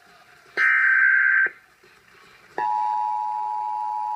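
Emergency Alert System tones: the last of three one-second bursts of SAME digital header data, then, about two and a half seconds in, the two-tone EAS attention signal starts and holds steady. Together they mark the start of an alert, here a national test.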